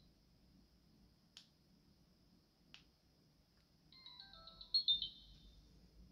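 Two clicks of the SJCAM SJ8 Dual Screen action camera's buttons being pressed, followed by a short electronic melody of beeps falling in pitch, the camera's power-off tune.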